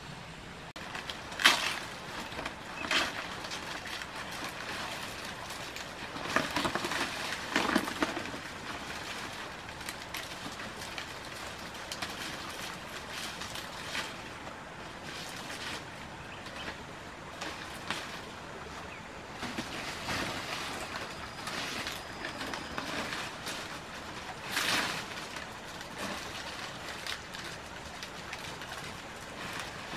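Palm fronds rustling and bamboo poles knocking as the fronds are handled and laid onto a small bamboo-framed roof, with a sharp knock about a second and a half in and bursts of rustling a few seconds later and again near the end, over a steady rush of running stream water.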